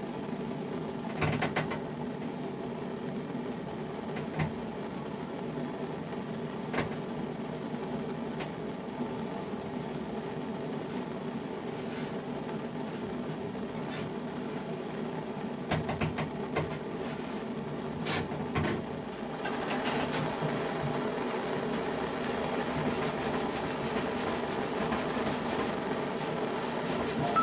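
A steady hum with several tones in it, broken by a few sharp clicks and small cracks as a heated palette knife is worked into the animal-glue seam between a double bass's back and ribs, prying the joint apart. About two-thirds of the way through, a hiss joins the hum and stays.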